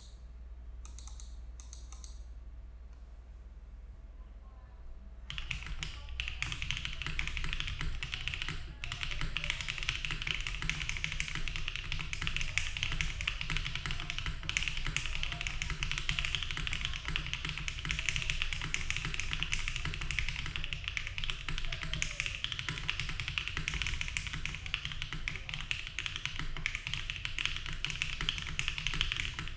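Typing on a Bauer Lite mechanical keyboard with stock HMX Xinhai switches, a polycarbonate plate, no foam and GMK Dandy keycaps. A few separate keystrokes come first, then fast, continuous typing from about five seconds in.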